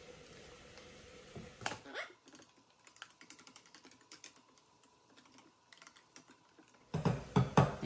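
Soup mix being poured from its paper packet into a measuring cup of milk, then a small utensil stirring it, clicking rapidly and lightly against the sides of the cup. A few louder knocks come near the end.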